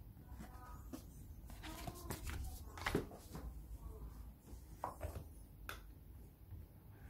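Cardboard phone packaging being handled: red card sleeves and box parts knocked, slid and set down, a string of light taps and scrapes with the loudest knock about three seconds in.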